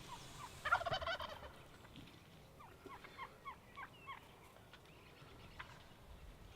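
Wild Merriam's turkey gobbler gobbling once, a loud rattling call about a second in, followed by a run of about eight short, downward-sliding turkey notes.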